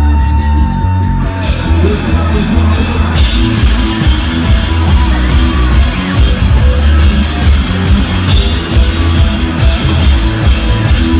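Live rock band playing loud, with heavy bass and drums under electric guitar; cymbals crash in about a second and a half in and the full band carries on.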